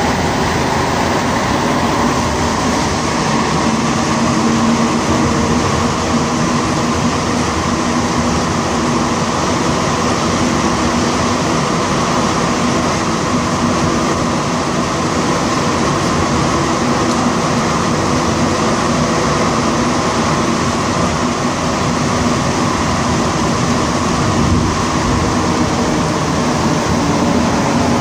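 Montreal Metro AZUR (MPM-10) rubber-tyred train running at speed through a tunnel, heard from inside the car: a loud, steady rumble of tyres and running gear with a constant hum over it.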